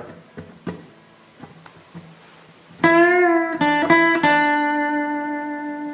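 Steel-string acoustic guitar: a few faint finger and string noises, then about three seconds in a short single-note lick of quick picked notes, the last one left ringing and slowly fading.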